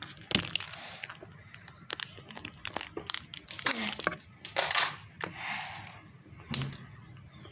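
Plastic wrapping of a small toy-surprise candy egg crinkling and tearing, with sharp clicks and crackles, as it is worked open by hand. It is hard to open. The loudest crinkling comes a little before the 5-second mark.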